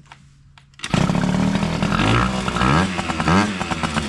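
Honda Elite scooter's small two-stroke engine, an AF16/AF18 type, comes in loud about a second in and is revved up and down repeatedly through a really loud, unrestricted exhaust pipe, tested with a freshly fitted 92 mm TWH variator.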